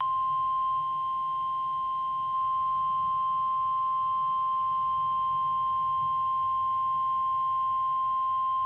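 NOAA Weather Radio warning alarm tone: a single steady 1050 Hz tone held without a break, the alert that a warning broadcast, here a severe thunderstorm warning, is about to follow.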